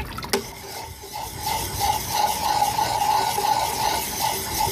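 Wet dual-grit sharpening puck rubbed in circular strokes along the bevel of a steel drawknife, with water as lubricant: a steady gritty scraping of stone on steel. A few light clicks come first, then the scraping settles in, steady, from about a second and a half in.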